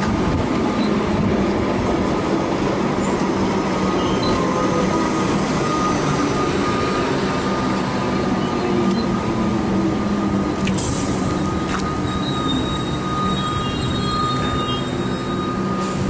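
Comeng electric suburban train pulling out of the station and running past, a steady rumble of motors and wheels on the track. A thin high wheel squeal joins in during the second half.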